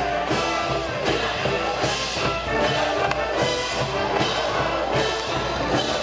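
Brass band in the stands playing a cheering tune for the batter, trumpets leading over steady drum beats.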